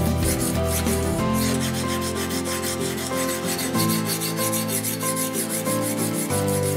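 Sharpening stone of a guided-rod knife sharpener scraping along a clamped steel knife blade in repeated strokes, with background music under it.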